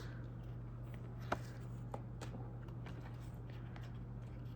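Trading cards being handled quietly: a few light clicks and rustles, the sharpest about a second in, over a steady low hum.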